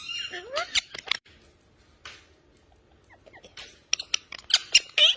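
Pet parrot vocalising: a few short rising chirps at the start, a quieter stretch, then a quick run of sharp clicks and short chirps near the end.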